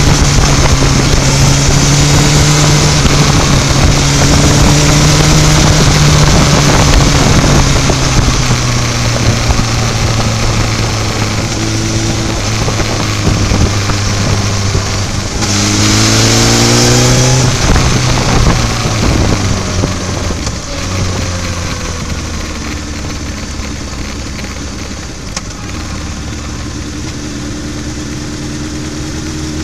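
Sport motorcycle engine running under the rider while riding at moderate speed, its pitch shifting with the throttle, with wind noise. About halfway through the engine revs up sharply for a second or two, then eases off and runs quieter toward the end as the bike slows.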